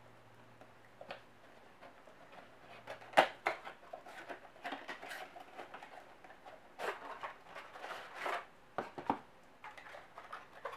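Cardboard retail box of an Intel processor being opened by hand and its cardboard insert slid out: a sharp click about three seconds in, then intermittent scraping and rustling of cardboard and paper with a few light clicks.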